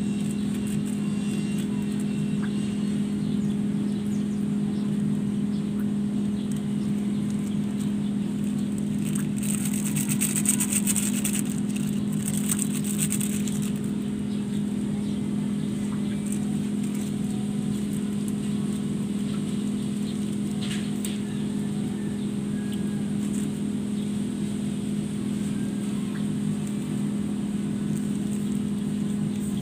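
A steady low hum of a running motor, one even pitch that does not change, with a brief hiss about ten seconds in.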